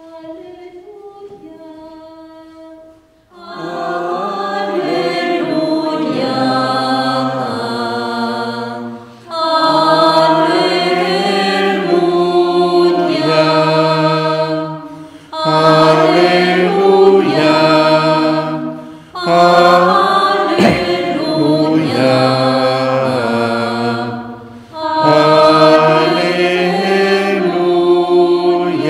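Choir singing a liturgical chant in long phrases of several seconds each, with short pauses for breath between them. A few quieter sung or played notes come first, for about three seconds.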